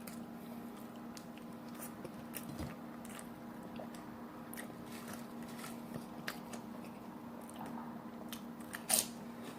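Close-up chewing of a cheeseburger and chips: wet mouth clicks and crunches scattered throughout, the sharpest crunch about nine seconds in, over a steady low hum.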